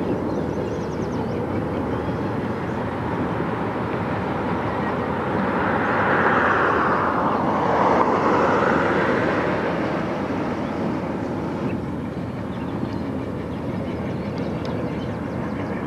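Alco Century diesel locomotive running past, its engine and the train's rolling noise swelling to a peak about six to eight seconds in, then easing off.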